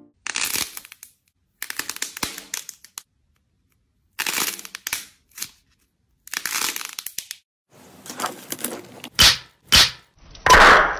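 Hands squeezing and pressing crunchy slime and cracking clay: a series of short crackling, crunching bursts with silent gaps between. Near the end come two sharp pops and then a louder, longer crunch.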